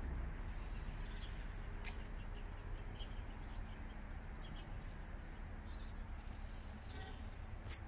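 Steady low rumble of background noise with faint, scattered bird chirps and a couple of sharp clicks.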